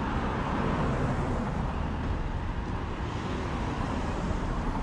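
Cars driving past on a city street, tyre and engine noise over a steady hum of traffic.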